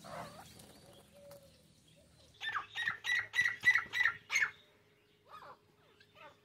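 Backyard game bird calling: a run of about seven loud, harsh, evenly spaced calls, roughly three a second, starting a little over two seconds in, then two fainter calls near the end.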